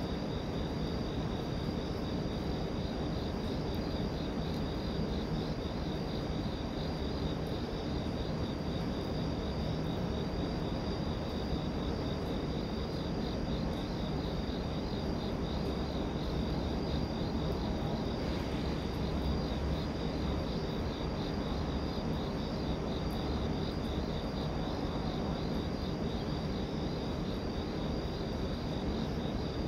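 Crickets chirping in a fast, even pulse, over a steady low rumble.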